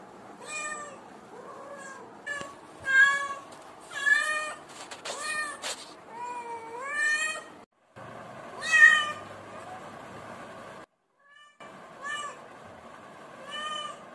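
Cat meowing over and over, about a dozen short meows each under a second long, several gliding up and then down in pitch, the loudest about two-thirds of the way through.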